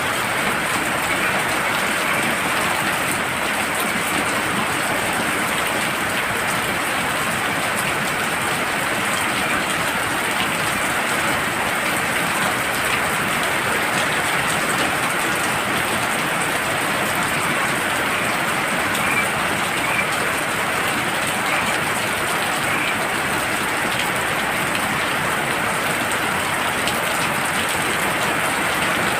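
Heavy rain falling steadily, an even, unbroken hiss with a thin, high, steady tone above it.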